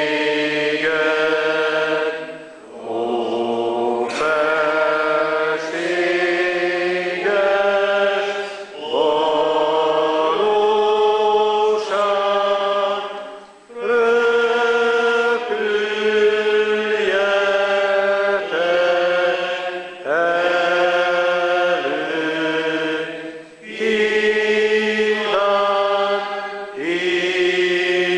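A church congregation singing a slow hymn, each note held long and stepping from pitch to pitch, in phrases with short pauses for breath between them.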